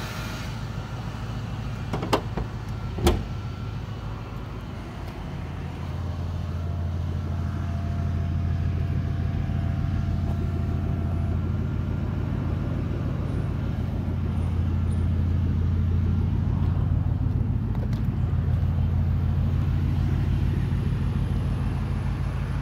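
Straight-piped 4.6-litre V8 of a 1999 Lincoln Town Car idling steadily, a deep low drone with the mufflers removed, growing louder about five seconds in. Two sharp knocks sound in the first few seconds.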